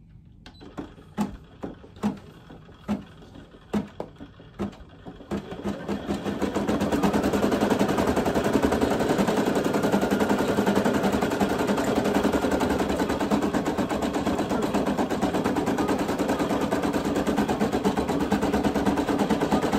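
Brother PE800 embroidery machine starting a design: a few slow, separate stitch clicks about a second apart, then about six seconds in it speeds up to a steady, fast clatter of needle stitching that keeps on.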